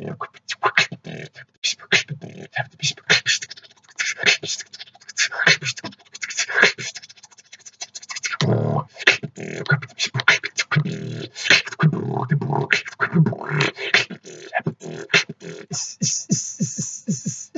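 A man beatboxing freestyle, recorded through a poor-quality microphone: a fast run of mouth-made percussive clicks and hisses, with a low buzzing bass held for a moment about halfway through and a long steady hiss near the end.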